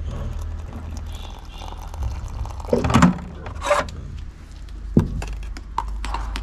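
Objects being handled and set down: a few knocks and thuds, a cluster about three seconds in and a single sharp one near the end, over a low steady hum.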